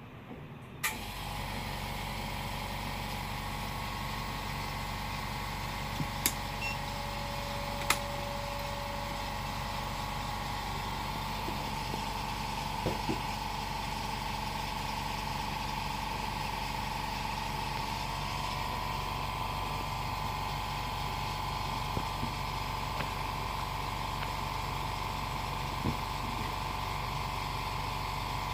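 A small electric machine switched on with a click about a second in, then running with a steady hum and whir.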